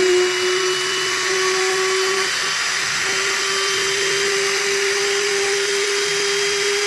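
An 800 W trim router spinning a V-bit at speed on a desktop CNC router while it engraves an MDF board: a steady whine over a hiss, which wavers briefly about two seconds in.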